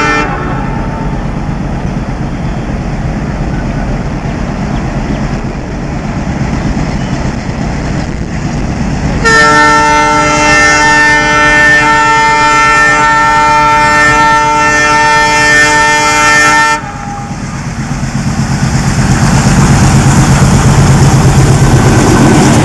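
ALCo diesel locomotive sounding its multi-tone horn in one long blast of about seven seconds, starting about nine seconds in, over the steady run of the train. After the horn the train's rumble and wheel noise swell louder toward the end.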